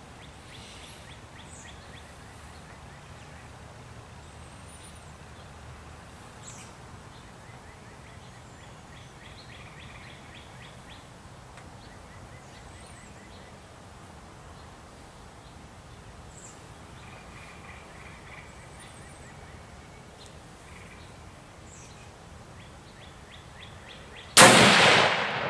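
Faint birdsong, scattered chirps and trills, then near the end a single loud shot from a Remington 700 40X bolt-action rifle in .25-06, its report echoing away.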